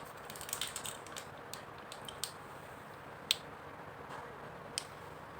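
Faint, scattered clicks and crinkles from a small plastic gummy wrapper being handled and opened, with one sharper click about three seconds in.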